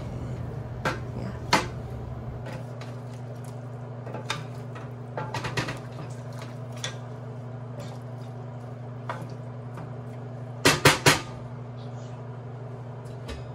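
A wooden spoon stirs chicken stew in a stainless steel pot, knocking and scraping against the pot now and then. Near the end come three sharp knocks in quick succession.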